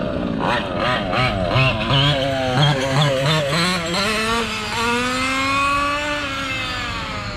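Small gas engine of a McD XR5 RC buggy running under quick throttle changes, its pitch swinging rapidly up and down, then climbing and holding higher for a couple of seconds before falling near the end.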